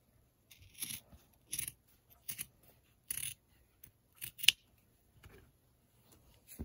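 Orange-handled scissors cutting through folded cotton fabric: a series of separate snips about a second apart, the sharpest a little past the middle.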